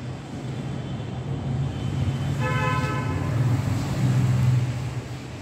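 A motor vehicle's engine rumble swelling as it passes, with a short horn toot about two and a half seconds in.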